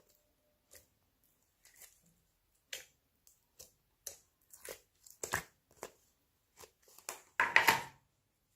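Slime being worked and mixed by hand: a string of short crackly squishes that come closer together, with a louder crunching burst near the end.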